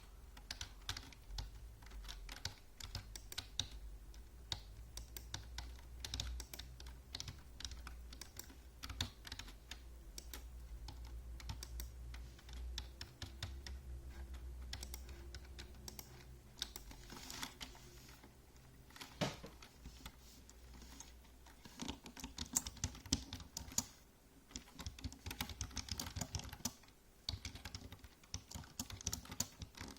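Typing on a computer keyboard: a steady run of quick keystrokes with brief pauses between bursts, over a low hum that fades out about halfway through.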